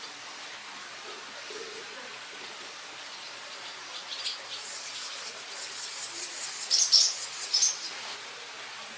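Baby birds in a nest chirping: scattered short high chirps from about four seconds in, then a louder flurry of chirps near the end, over a steady background hiss.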